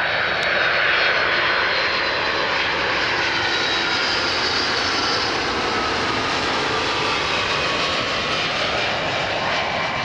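Boeing 757-200 jet engines heard as the airliner lands, a loud steady rush with faint high whine tones that slowly fall in pitch as it goes by.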